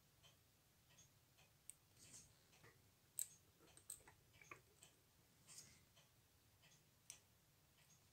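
Faint, irregular small clicks and ticks of a fine steel watchmaker's tool touching a watch movement and its holder. The sharpest click comes about three seconds in.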